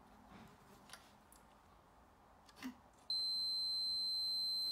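Fluke 77 digital multimeter's continuity beeper: a few faint probe clicks, then about three seconds in a steady high-pitched beep that holds. The meter reads zero across the diode, the sign that the diode is shorted and has failed.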